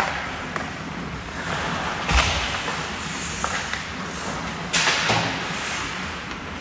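Ice hockey play in an arena rink: sharp knocks of sticks and puck, a heavier thud about two seconds in, and a louder knock just before five seconds in, each followed by a brief hiss of skate blades scraping the ice.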